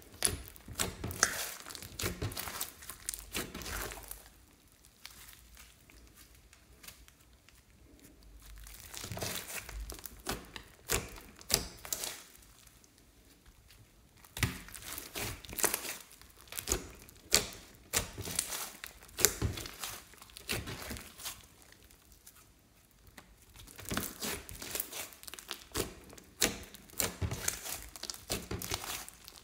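Hands kneading, pressing and stretching a sticky slime full of foam beads: irregular crackles, clicks and pops from the slime as it is squeezed and pulled, coming in bursts with quieter stretches between.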